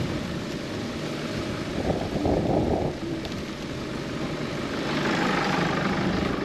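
Wind buffeting the microphone, a steady rushing noise with low rumble that swells twice.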